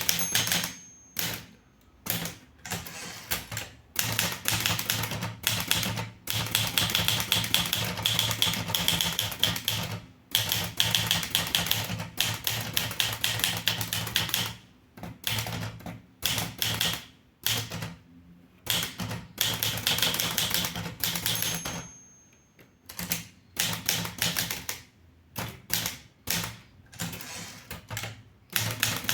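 Underwood 315 manual typewriter being typed on: runs of rapid keystrokes broken by short pauses. A brief high ring comes about a second in and again past twenty seconds.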